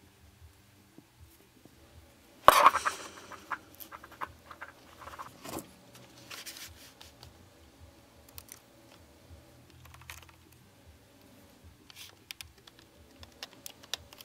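Small handling noises as a tiny plastic pin-header connector is fitted to the side of a palmtop computer: scattered clicks, taps and short scrapes, with one louder clatter about two and a half seconds in.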